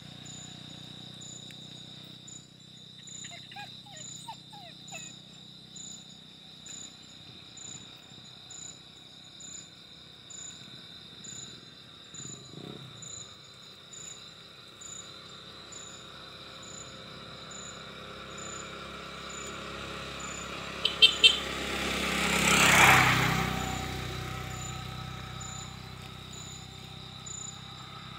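Insects chirping steadily: a continuous high trill with a pulsing chirp about twice a second. About twenty seconds in, a vehicle passes on the road, swelling to a peak and fading away.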